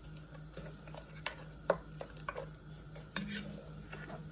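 Wooden spoon stirring wet pineapple-and-sugar filling in a heavy-bottomed enamelled pot, with scattered knocks and scrapes of the spoon against the pot. The sharpest knock comes a little under two seconds in. A steady low hum runs underneath.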